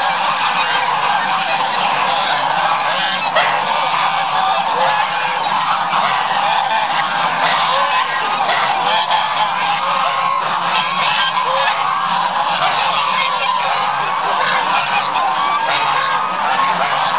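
A large flock of domestic geese honking, a dense, unbroken chorus of many overlapping calls at a steady level.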